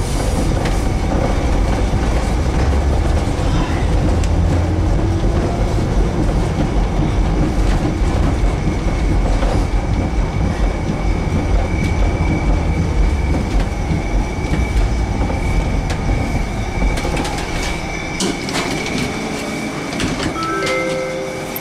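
Tatra tram running along the tracks, heard from inside: a steady rumble of wheels on rail with a thin constant whine above it. The rumble fades as the tram slows to a stop near the end, with a few sharp clicks and knocks.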